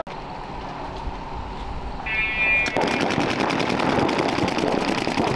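Paintball markers firing rapid strings of shots, several overlapping, starting just under three seconds in. A brief high tone sounds just before the firing begins.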